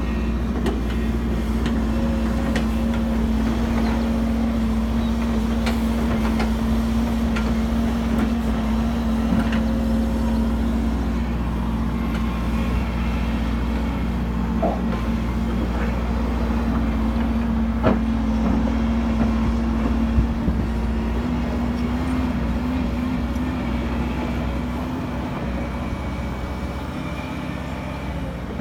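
Hidromek crawler excavator's diesel engine running steadily under load, with a few sharp knocks from the working machine; the engine pitch lifts slightly about two-thirds of the way in.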